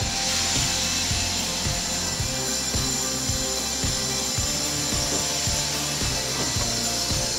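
GWR King class 4-6-0 steam locomotive No. 6023 King Edward II moving slowly, steam hissing from its cylinder drain cocks over a low uneven pulsing. The hiss is strongest in the first couple of seconds and then eases.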